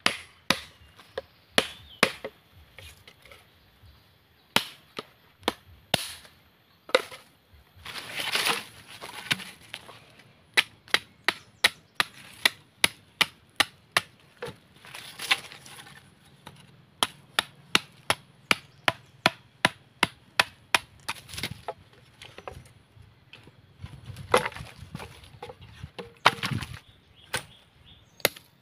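A machete blade chopping into wooden sticks: many sharp chops, irregular at first, then a quick run of about two to three a second in the middle. A few longer, noisier sounds come between the runs.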